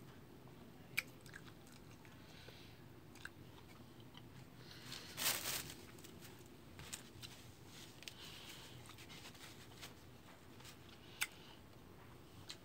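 Faint chewing and crunching of crisp fresh fruit slices, with scattered small mouth clicks and one louder, noisier moment about five seconds in.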